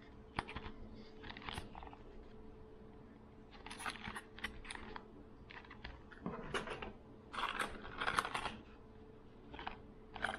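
Hard plastic blister packs of fishing lures being handled and turned over in the hands, giving irregular clicks, taps and crinkles of the plastic, busiest about six to eight seconds in.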